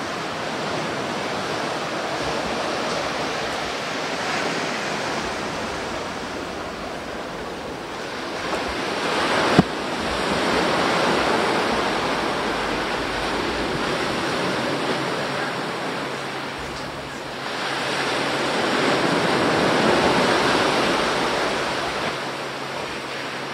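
Sea waves washing onto a beach, a steady rush that swells twice as waves break. A single sharp click about ten seconds in.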